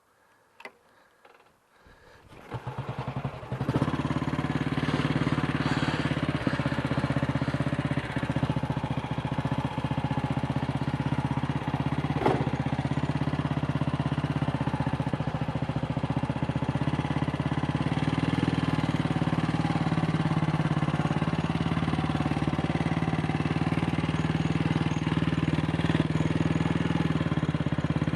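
AJS Model 8 motorcycle's single-cylinder engine starting about two seconds in, firing in quick pulses that build up, then running steadily.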